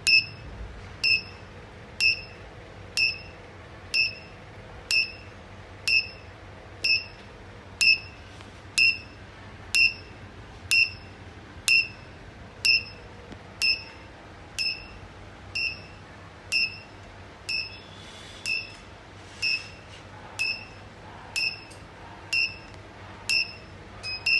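Electric fence pulse indicator beeping: a short high beep with a sharp click about once a second, each beep marking a shock pulse from the fence energiser, sensed on the fence wire.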